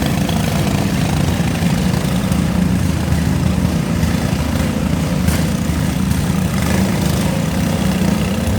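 Riding lawn mower engines running steadily.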